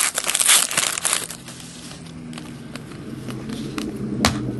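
A trading card pack wrapper crinkling as it is opened for about the first second and a half, then a few light clicks and rustles as the cards are handled.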